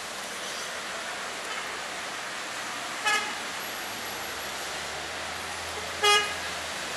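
Two short car horn toots about three seconds apart, the second louder, over a steady hiss of rain and traffic on a wet street.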